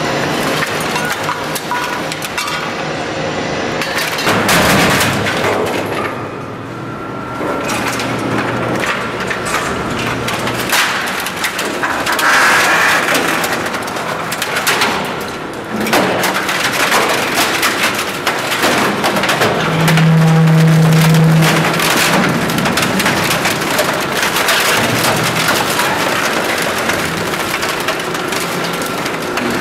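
Komar EM-40G auger compactor's screw auger crushing metal and plastic exercise-equipment parts: a dense, continuous run of cracks, snaps and crunches with louder bursts. A short low hum sounds about twenty seconds in.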